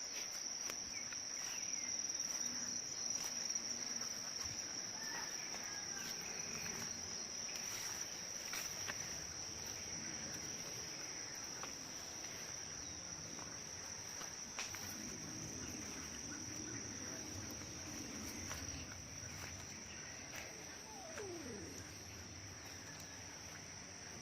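Steady high-pitched insect chorus trilling without a break, with a few faint short chirps and clicks.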